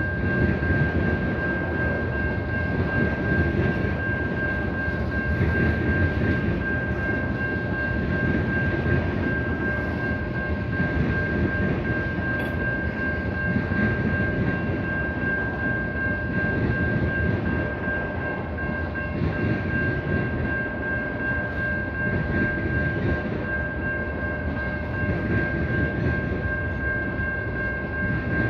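Freight train's covered hopper cars and tank cars rolling past at a grade crossing: a steady rumble and clatter of wheels on the rails, with a steady high ringing tone throughout.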